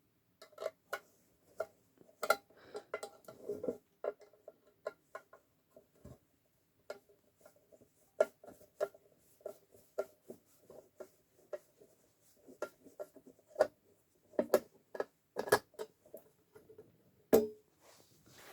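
Irregular clicks, taps and knocks of a screwdriver and hands working on a metal transformer case, each with a short ringing from the case; a few sharper knocks stand out near the end.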